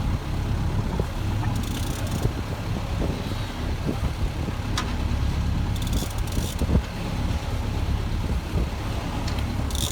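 A boat's engine running steadily, under a haze of wind and water noise.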